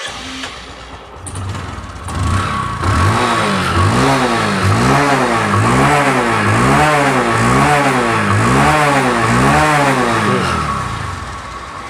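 Bajaj Discover 100's single-cylinder four-stroke engine, heard at its exhaust silencer, idling and then revved about ten times in quick succession, each rev rising and falling, before dropping back to idle near the end. It runs cleanly, without smoke, with the sound a healthy Discover should have.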